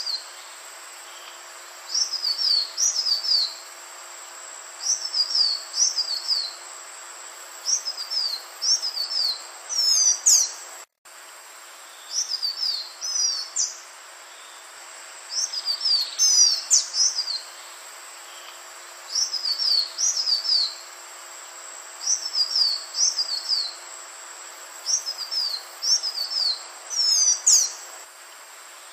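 Green iora singing: bursts of quick, high, downward-slurred whistled notes, each burst about a second long and repeated every two to three seconds, over a faint steady hum. The sound cuts out for an instant about eleven seconds in.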